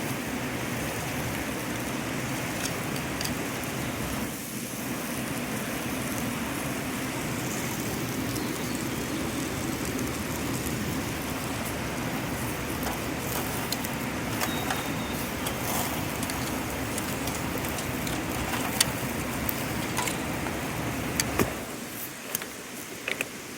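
Meat sizzling on a grill, a steady hiss with scattered pops and crackles as the juices drip out. Near the end the sizzle drops quieter.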